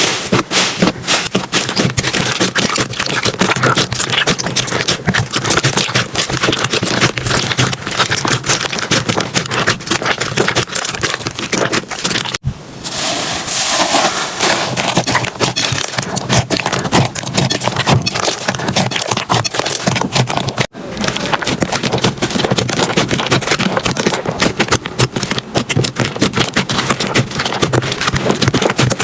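Slime being squished and pressed, giving a dense, rapid run of crackling and popping clicks. The sound breaks off abruptly twice, about twelve seconds in and again about twenty-one seconds in, then carries on.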